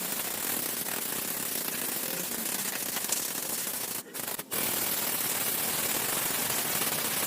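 Steady hissing, scouring noise of an abrasive surface-cleaning tool working on metal, cutting out twice for a moment about four seconds in.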